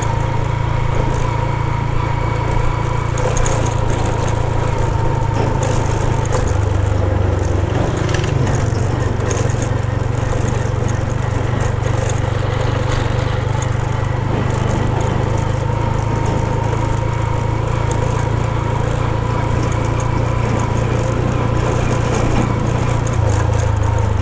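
Motorcycle engine running steadily under way, heard from the bike. Its note drops lower for a moment about six seconds in and again near the end. Scattered clicks and rattles come through as it rides over a rutted, broken road.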